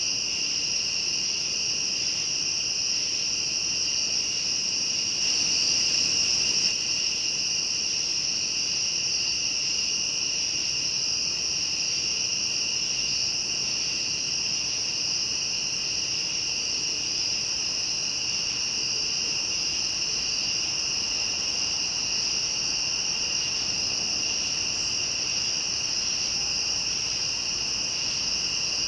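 Night chorus of crickets and other insects: a steady, unbroken high-pitched trilling, a little louder about five to seven seconds in.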